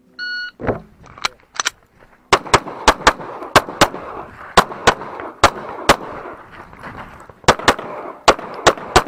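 Shot timer beep, then a red-dot-sighted competition pistol firing rapid shots, mostly in quick pairs, with the reports echoing across the range.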